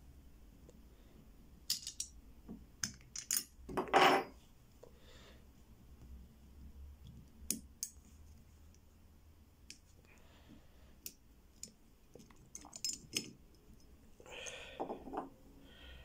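Sharp metallic clicks and small clatter of an Abus Super Code 158/50 combination padlock being prised apart by hand, its casing cover popping off to expose the code wheels. The clicks are scattered, with the loudest knock about four seconds in.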